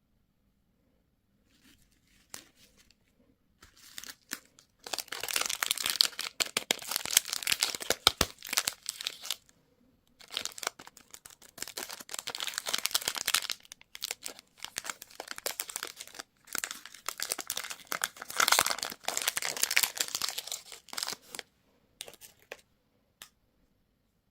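Plastic or foil candy wrapping being torn open and crinkled in three long spells of dense crackling, with a few small crinkles and clicks between and after them.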